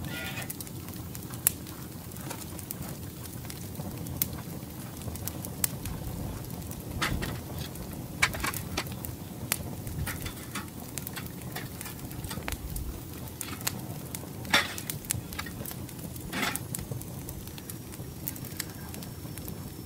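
Charcoal fire burning, with irregular sharp clicks and pops scattered throughout, the loudest about two-thirds of the way through.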